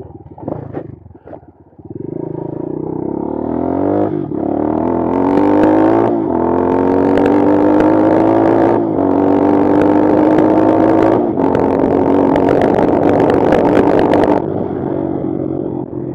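Bashan Brozz 250 dual-sport motorcycle engine accelerating hard through the gears. The pitch climbs and falls back at each of about four upshifts, and the throttle eases off near the end. The first couple of seconds are quieter, with a few knocks.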